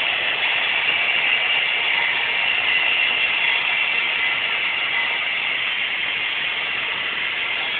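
Model freight train running along the layout's track: a steady whirring rattle of its wheels and motor.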